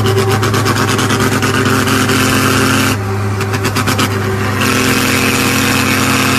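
Truck engine running at a steady speed, heard from inside the cab, with a quick even pulsing for the first few seconds.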